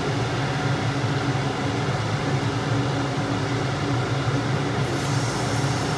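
A steady low machine hum runs throughout. About five seconds in, a high sizzle starts as gulgule batter is dropped into hot mustard oil in an iron kadai and begins to deep-fry.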